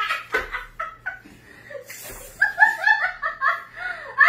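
A woman laughing hard: a run of short, high-pitched laughs that grows fuller in the second half.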